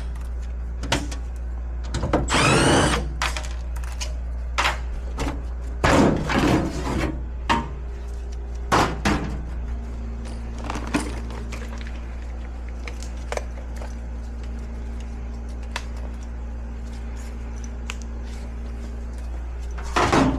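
Scattered clicks and knocks of hands and tools working at a gas furnace's control board, over a steady low hum; a steady tone joins about halfway through.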